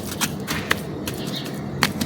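Dry, crumbly material cracking and crunching as it is crushed, with a few sharp cracks, the loudest near the end.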